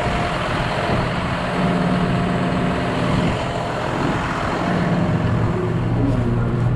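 John Deere tractor's diesel engine idling steadily, with a deeper low rumble coming in near the end.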